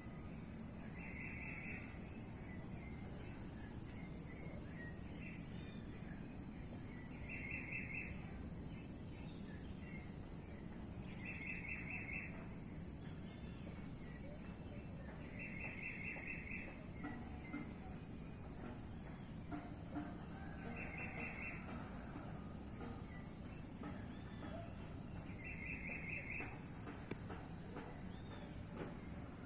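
Birds and insects outdoors: a steady high insect buzz, with a short, rapid trilled call repeating about every four to five seconds and faint scattered bird chirps between.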